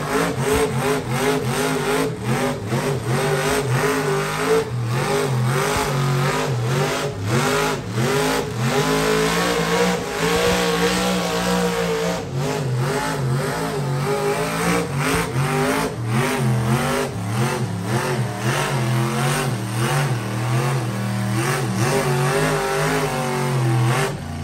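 Lifted mud truck's engine revving hard over and over, its pitch climbing and falling with each blip.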